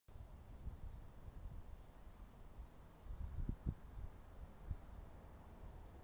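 Faint, short bird chirps scattered over a low outdoor rumble like wind on the microphone, with a few soft low thumps about three and a half seconds in and again near five seconds.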